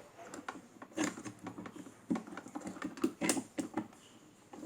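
Irregular light clicks and taps of small metal parts being handled while an electric fan motor is taken apart by hand, with a few louder knocks.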